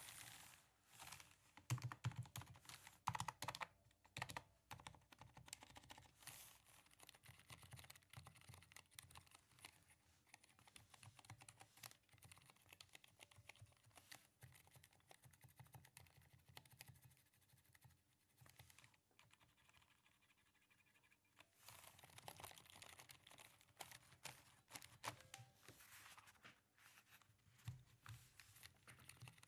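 Typing on a Durgod Taurus K310 mechanical keyboard with Cherry MX Silent switches: quiet, rapid, irregular keystrokes. The typing pauses for a few seconds past the middle, then resumes.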